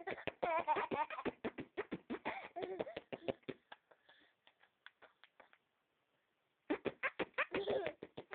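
A person making mouth noises: quick runs of clicks mixed with wavering voiced sounds, in the manner of beatboxing. They trail off about four seconds in, stop for about a second, then start up again near the end.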